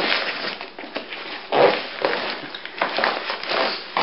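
Rummaging in the main compartment of a Maxpedition Sitka sling pack: nylon fabric rustling, with soft knocks as gear is shifted and pulled out.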